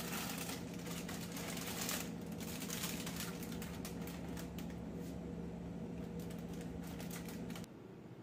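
Plastic chip packets crinkling and rustling in quick, irregular handfuls as they are grabbed off a shelf, over a steady low hum. Both cut off abruptly near the end, leaving quieter room tone.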